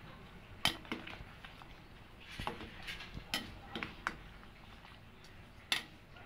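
Scattered light clicks and taps at irregular intervals, with sharper knocks about half a second in and near the end, as a utensil knocks against a metal cooking pot.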